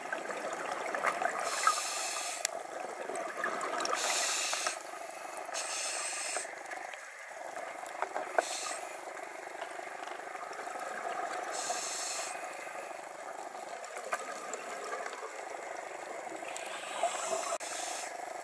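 Scuba breathing heard underwater through a regulator: a hiss of air lasting about a second, recurring every few seconds. Under it runs a steady crackle with scattered sharp clicks.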